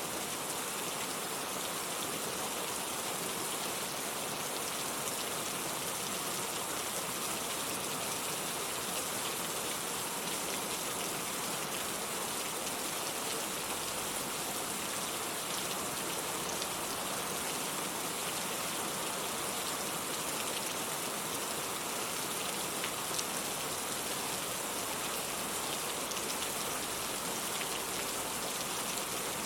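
Steady rain falling, a continuous hiss of drops with small scattered patters on surfaces.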